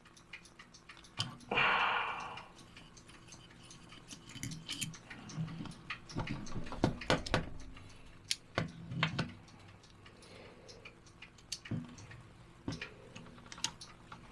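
Small metal screws and kit parts being handled and fitted by hand: scattered light clicks and taps, some in quick clusters, with a short rustling rush about a second and a half in. A faint steady hum runs underneath.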